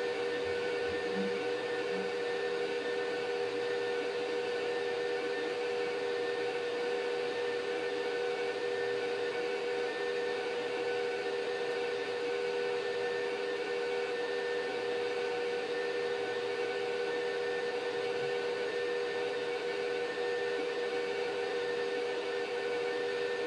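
Anycubic Vyper 3D printer running a print: a steady whir of its cooling fans and motors with a steady hum of a few held tones.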